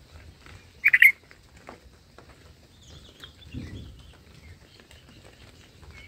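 Bulbul calls at the nest: a short, loud burst of three quick chirps about a second in, then faint scattered chirps. A soft low rustle comes about halfway through.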